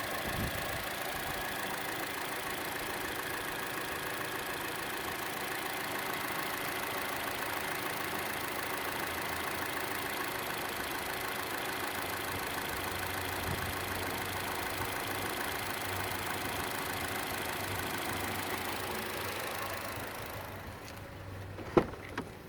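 Chevrolet Cruze engine idling with a ticking louder than the normal engine tick, most noticeable on the belt side; the owner does not know its cause. The engine sound falls away near the end, followed by one sharp knock.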